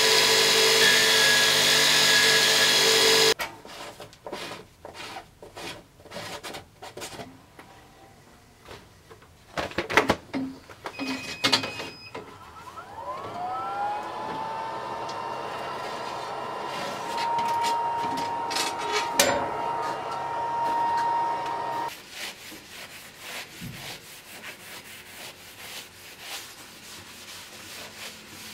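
A belt grinder runs loudly with a steel cutlass blade held to the belt, then cuts off suddenly about three seconds in. Scattered knocks and handling clicks follow, then a whine rises and holds steady for several seconds. From about two-thirds of the way through, the blade is rubbed by hand in repeated abrasive strokes.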